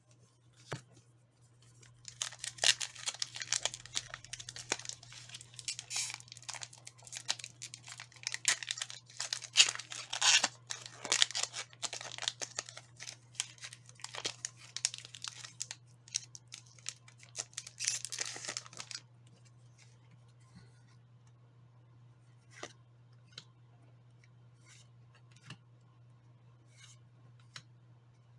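Pokémon card packaging being torn open and crinkled for about seventeen seconds, followed by a few light, scattered clicks. A steady low hum runs underneath.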